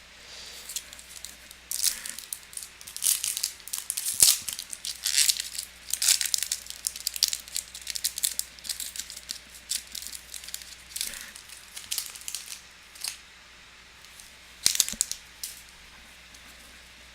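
Crinkling and tearing of a foil trading-card pack wrapper as it is opened, with the cards being handled, in irregular bursts of crackle.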